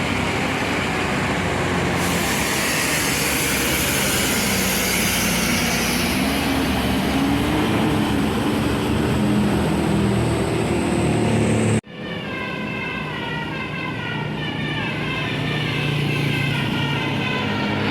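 Big tour bus engines running as the buses pass on the road, one engine note rising steadily over several seconds. The sound cuts off abruptly about twelve seconds in, and another passing vehicle's sound follows.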